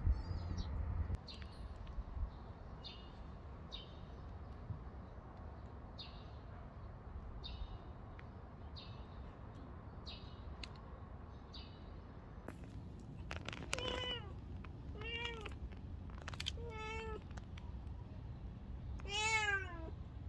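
Domestic cat meowing four times in the second half, short arched meows a second or two apart, the last one the loudest. Faint high chirps repeat about once a second before the meows start.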